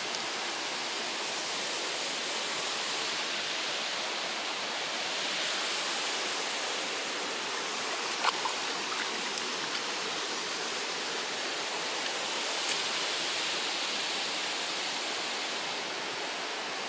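River water rushing over rocks below a waterfall: a steady, even hiss, with one brief faint click about eight seconds in.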